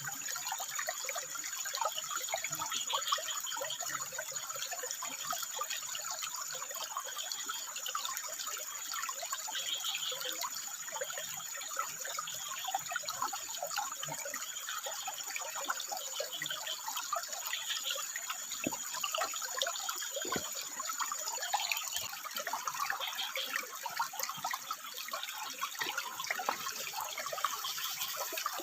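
Stream water running and splashing over rocks, with frogs calling now and then in short high calls. A thin, steady, very high whine sits over it and cuts off about 22 seconds in.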